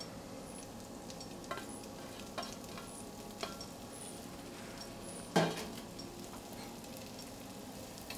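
Julienned ginger and carrot cooking in butter in a pan, a gentle steady sizzle, with a few sharp knocks of a utensil stirring against the pan, the loudest about five seconds in.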